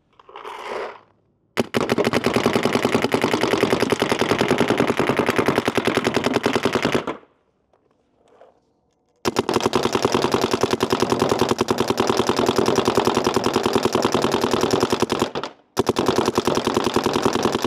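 Paintballs rattle briefly into the hopper, then the DLX Luxe IDOL electronic paintball marker fires in long, very rapid strings of shots. There are three strings of several seconds each, broken by short pauses, as a full pod of paint is emptied.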